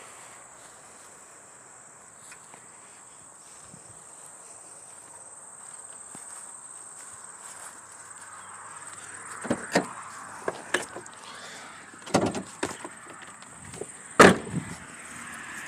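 Steady high insect drone, with footsteps through dry grass in the second half: a handful of sharp crunching steps and rustles, the loudest near the end.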